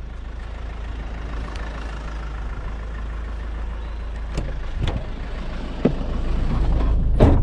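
Van engine running with a steady low rumble, with a few light knocks over it in the second half.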